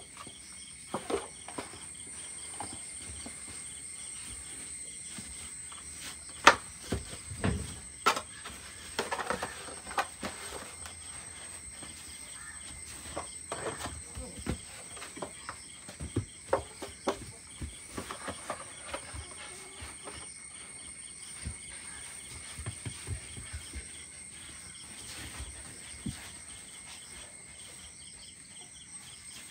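Scattered knocks and scuffs of a puppy playing with a rubber football on artificial turf, jumping and grabbing at the ball, over a steady high-pitched whine; one knock about six and a half seconds in stands out as the loudest.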